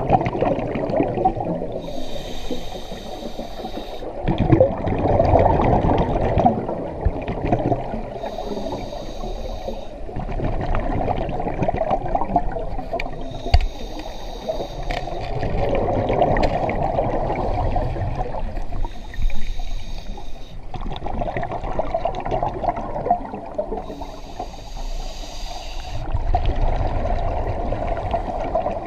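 Scuba diver breathing through a regulator underwater: a short hiss on each inhale, five times about every five or six seconds, with the bubbling rush of exhaled air in between.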